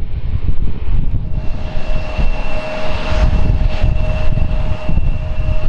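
Jet airliner engines running with a steady whine over a low rumble. The whine comes up about a second in.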